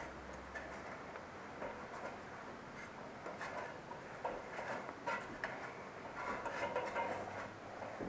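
Irregular clicks and taps of hands and feet on an aluminium ladder during a climb down, with rustling, the clicks growing more frequent about three seconds in.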